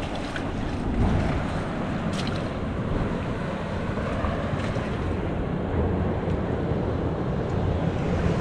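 Steady wind noise on the microphone mixed with the wash of ocean surf, with a few faint clicks.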